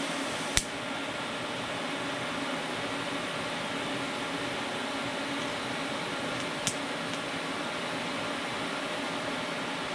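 TIG welder's high-frequency arc start giving one sharp snap about half a second in, and a second sharp snap near seven seconds as the arc goes out once the filler rod has stuck in a puddle too cool to melt it. A steady background hiss and hum runs underneath.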